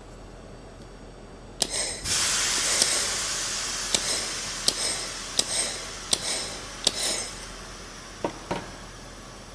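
Pulsed laser welder firing: sharp snaps about every 0.7 seconds over a hiss that comes in about two seconds in and fades out around seven seconds, then two last snaps close together near the end.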